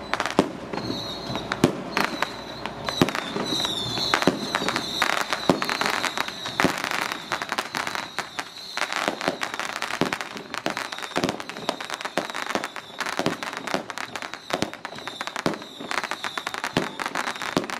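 Strings of firecrackers going off, a dense run of irregular sharp cracks and pops.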